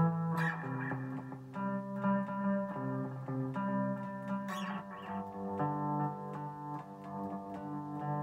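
Guitar being played: a slow run of plucked notes and chords, with a strummed chord about half a second in and another about four and a half seconds in.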